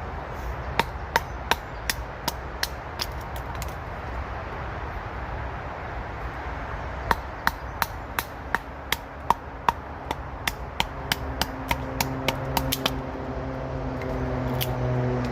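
A wooden baton striking the spine of a small bushcraft knife, driving it through a wet ash log: two runs of sharp, even knocks about three a second, over the steady hum of motorway traffic. Near the end a vehicle's engine drone rises.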